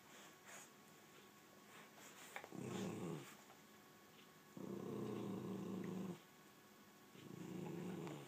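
Dog growling low, in three grumbles; the middle one is the longest, about a second and a half.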